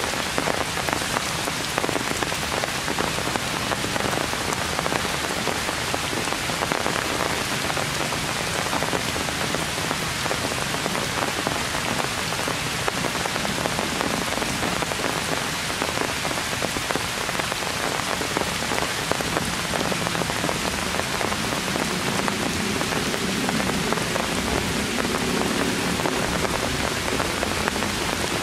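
Heavy rain falling steadily on tree foliage, a dense hiss full of tiny drop patters. A low hum rises under it in the last third.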